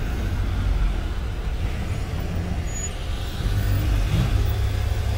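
Bus engine and road noise heard from inside the cabin while driving: a steady low rumble with a hiss of tyres on the road.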